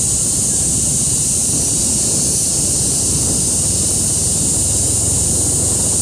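Steady wind rumble buffeting the microphone while riding along a dirt track, with a constant high-pitched hiss over it.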